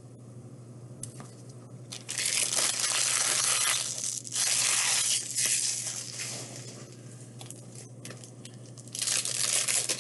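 Wrapper of a pack of baseball cards being torn open and crinkled, in three loud bursts of crackling: one about two seconds in, a second around five seconds, and a third near the end. A steady low hum runs underneath.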